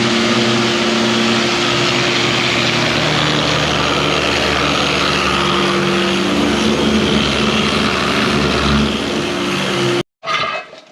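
A motor-driven workshop machine running steadily: a loud, even hiss over a steady hum. It cuts off suddenly near the end.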